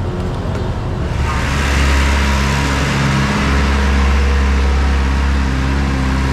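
Motor vehicle engine running steadily close by, a low, even hum, with a rushing hiss coming in about a second in.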